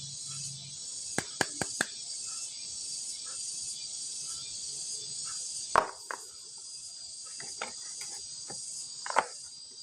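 Steady high-pitched chirring of insects, like a cricket chorus, with a few sharp clicks and knocks: four quick clicks about a second in, and louder single knocks near the middle and near the end.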